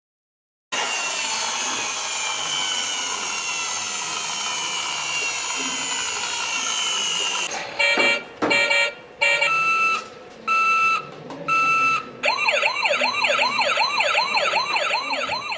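Toy taxi car's electronic sound effects through a small speaker. A noisy effect with slowly falling pitch runs for about seven seconds, then five short horn-like beeps about a second apart, then a fast wailing siren until the end.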